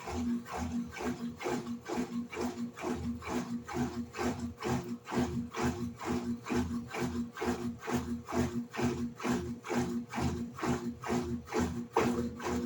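Electrolux LED14 top-load washing machine agitating during its wash cycle: the motor drives the agitator back and forth in a steady rhythm of about three strokes a second, each stroke a swish with a low hum.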